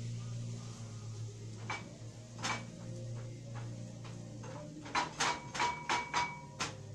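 Slotted spatula knocking and scraping against a frying pan as greens are stirred: a few scattered knocks, then a quick run of about eight about five seconds in, some with a short metallic ring. A low steady hum runs underneath.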